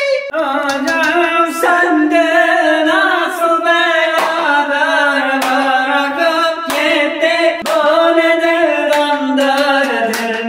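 A man and a woman singing together in a loud, wavering, held-note way, with a few hand claps.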